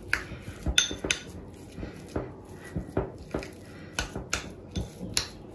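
Metal fork stirring and mashing a thick egg-yolk and mayonnaise filling in a small glass bowl, clinking against the glass about twice a second.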